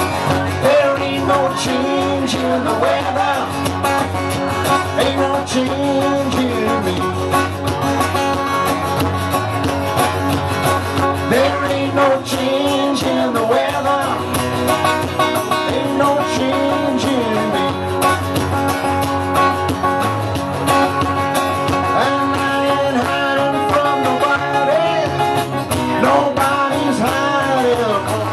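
Live acoustic band playing a country-blues song: a male voice singing over two strummed acoustic guitars and a bass guitar.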